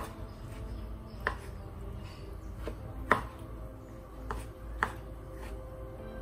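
Kitchen knife chopping soft tomatoes on a bamboo cutting board: about six irregular knocks of the blade on the wood, the loudest about three seconds in.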